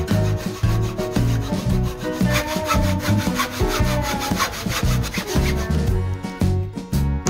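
Hacksaw cutting a small wooden block in quick back-and-forth strokes, the blade rasping through the wood, over background music.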